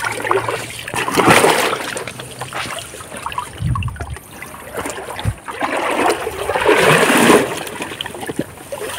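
River water splashing and sloshing as someone works through it, with two louder surges: one about a second in and a longer one around six to seven seconds in. A couple of short low thumps come in between.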